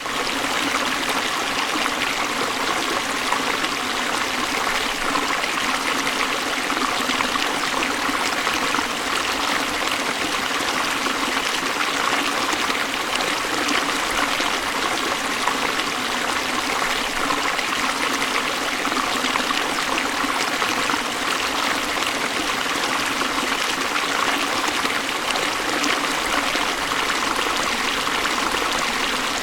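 River water rushing steadily: an even, unbroken hiss with little low rumble.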